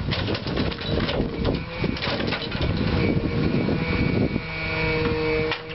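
Logging truck's diesel engine running to power its truck-mounted hydraulic log crane, with a run of knocks and rattles in the first couple of seconds and a steady hydraulic whine joining from about halfway through.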